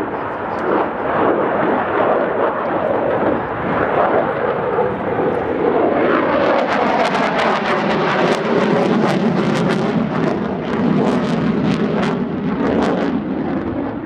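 The twin Klimov RD-33 turbofans of a MiG-29 Fulcrum fighter running in a loud, steady roar. From about six seconds in, a ragged crackle rides on top and the pitch slides down as the jet passes. The crackle dies away near the end.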